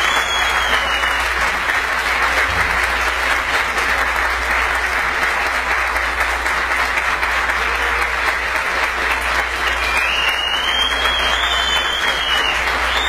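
Audience and band applauding steadily after a live drum solo. A high, wavering call rises and falls over the clapping near the start and again near the end.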